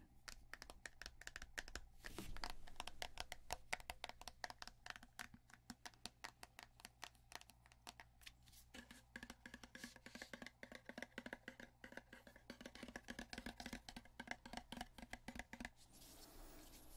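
Quiet, rapid fingertip tapping on the plastic grille and casing of a Divoom Timebox Mini Bluetooth speaker, many light taps a second in uneven runs.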